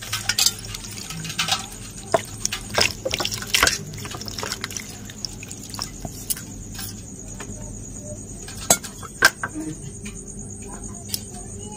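Water poured from a steel jug splashing over new potatoes in a steel plate, then wet hands rubbing and washing the potatoes. The splashing is busiest in the first few seconds, with a few sharp clinks against the plate later on.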